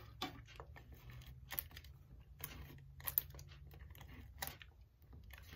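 Quiet paper-crafting handling: a tape runner laying adhesive on small pieces of cardstock and designer paper, which are then pressed down. Soft, scattered clicks and light paper rustles.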